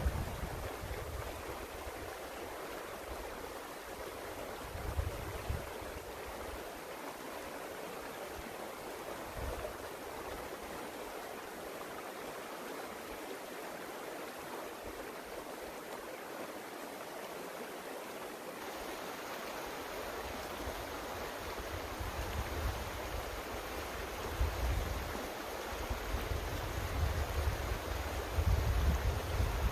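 Small creek running with a steady rush of water. Low wind rumbles on the microphone come and go, more of them near the end.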